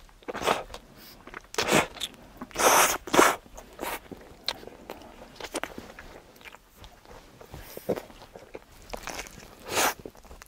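A person biting into and chewing a burger close by, in irregular crunchy bites: several loud ones in the first few seconds and another near the end.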